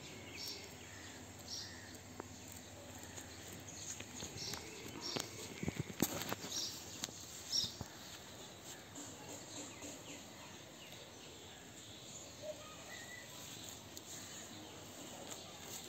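Outdoor ambience with short, high chirps repeating every second or so, and a few sharp clicks about six seconds in.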